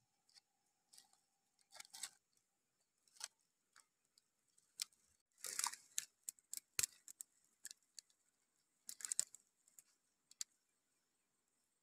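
Eggshells clicking and tapping against each other as eggs are set by hand into a shallow pit of dry soil, with soft scuffs of hands in the dirt. Faint, scattered and irregular, busiest around the middle.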